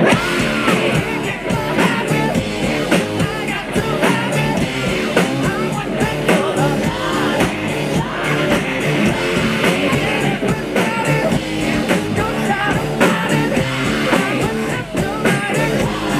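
Rock band playing live through a PA: electric guitars, bass and drums driving a steady beat, with a male lead singer singing over them.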